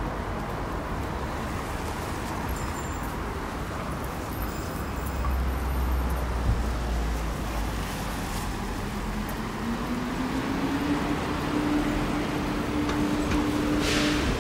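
Street traffic noise: a steady wash of passing vehicles, with a low engine rumble from about five seconds in. From about nine seconds a vehicle's whine rises in pitch and then holds steady, and a short hiss comes near the end.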